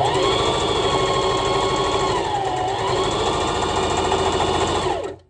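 Electric home sewing machine running, its needle stitching through a sweatpants waistband. The motor slows briefly about halfway through, picks up again, and stops abruptly near the end.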